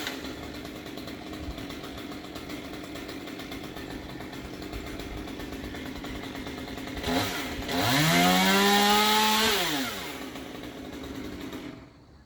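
Chainsaw engine running at idle, revved once to high speed about seven seconds in, held there for about two seconds, then dropped back to idle. It stops near the end.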